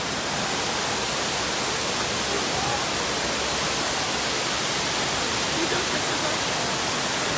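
Rushing water of a cascading waterfall, Dunn's River Falls, heard close up as a steady, loud, hissing roar.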